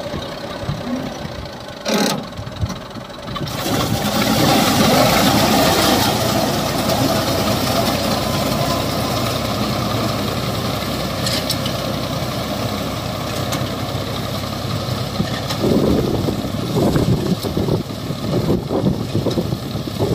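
Tractor engine running under load as its side-mounted wheat reaper-binder cuts standing wheat: a steady mechanical din that swells a few seconds in. There is a brief knock about two seconds in, and uneven rustling and thumps near the end.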